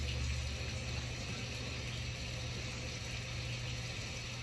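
Motorized curtain track drawing a pair of blackout curtains closed, its motor running with a steady low hum.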